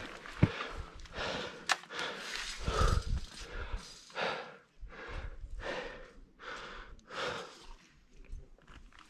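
A climber breathing hard in a steady rhythm while scrambling up steep rock. A couple of sharp clinks sound about half a second and nearly two seconds in, from the fixed steel chain being handled.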